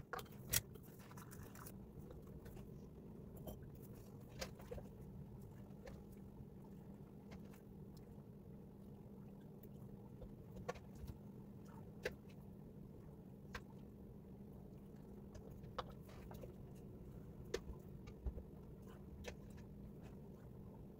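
Scattered light clinks and taps of a ladle and canning funnel against glass mason jars as hot brine is ladled in, over a steady low hum.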